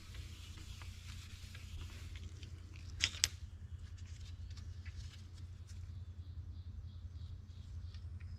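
Cloth rubbing polish onto a stainless steel trim piece for about two seconds, then two sharp knocks in quick succession about three seconds in, followed by faint handling noises over a low steady hum.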